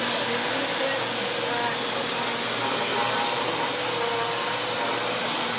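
Bissell PowerLifter Swivel Pet upright vacuum cleaner running steadily, its motor giving a continuous whine over a rush of air.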